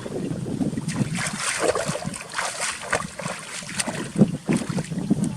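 Water splashing and sloshing irregularly, with some wind buffeting the microphone.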